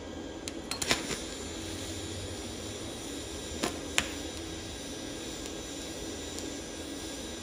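YesWelder MP200 lift-TIG arc on 14-gauge steel, struck with a short burst of sharp crackling clicks about a second in, then burning quietly over a steady hum. Two sharp pops come near the middle, the kind of sound that means stop and check the tungsten tip.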